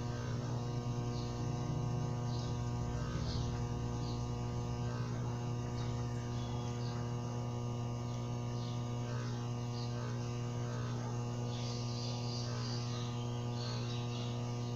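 Steady low electrical hum, even in pitch, with faint scattered soft ticks of a steel crochet hook working thread.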